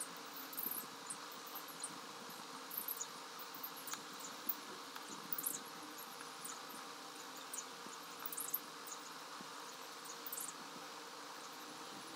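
Felt-tip marker drawing on paper: short, irregular, high scratchy squeaks in small clusters over a steady background hiss.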